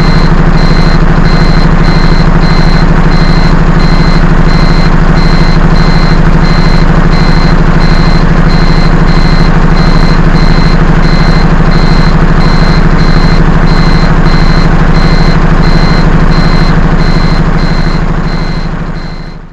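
A large vehicle's engine idling loudly and steadily, with a high electronic warning beep repeating quickly and evenly over it. Both fade out near the end.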